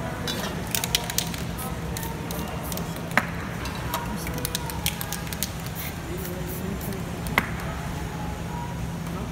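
Aerosol spray paint hissing in short bursts, most of them in the first half, with two sharp knocks, about three seconds in and again about seven seconds in. A steady background din of voices and music runs underneath.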